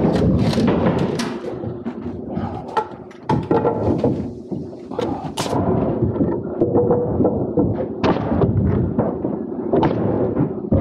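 Pneumatic stick framing nailer driving nails into 2x4 stair lumber: several sharp shots at irregular intervals, over steady jobsite background noise.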